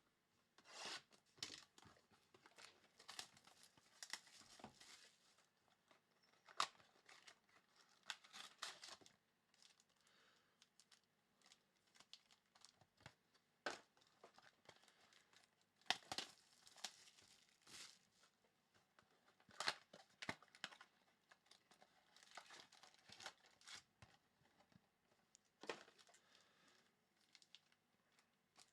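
Trading-card box packaging being torn open and crinkled by hand, in scattered bursts of tearing and rustling with a few sharper crackles.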